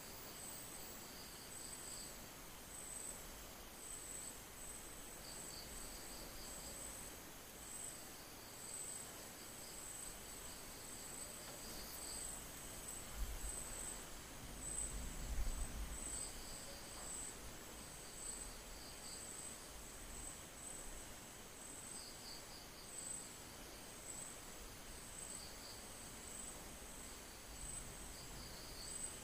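Faint insects chirping: a steady, high, pulsing trill with shorter trills breaking in every few seconds. A few low bumps come about halfway through.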